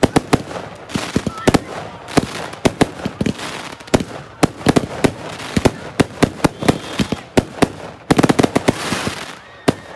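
Fireworks going off: a fast, irregular run of sharp bangs from bursting shells with crackling between them, the bangs coming thickest about eight seconds in.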